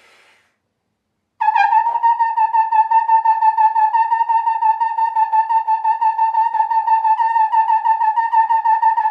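Trombone playing a fast, even stream of short repeated notes on one high pitch, starting about a second and a half in: a high-register endurance drill of repeated notes.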